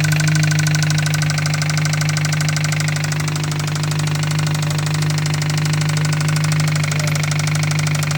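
Toyota Celica's built engine idling with a fast, steady ticking knock, which the owner takes for rod knock.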